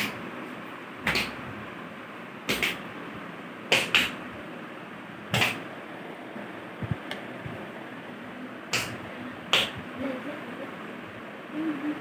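Short sharp slaps and thuds, about seven of them at irregular intervals, from children doing karate moves barefoot: feet stamping and slapping on a tile floor.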